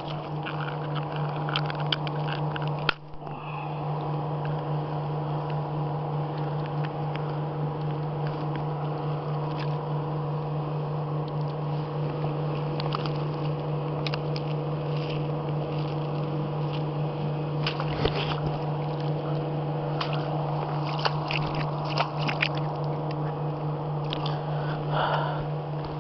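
A small boat's motor running with a steady low hum, with scattered light clicks over it.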